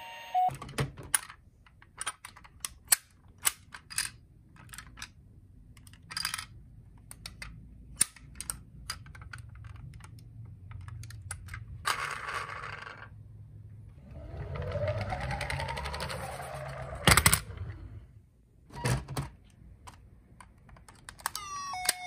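Toy ambulances clicking and knocking against each other and the cardboard box as they are handled, with a couple of longer scraping rustles in the middle and one louder knock about two-thirds of the way through.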